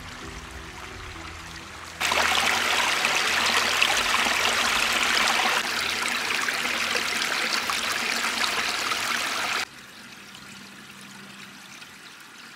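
Small forest stream running over stones, heard close up. About two seconds in, loud rushing water comes in suddenly, then drops sharply to a softer flowing sound for the last few seconds.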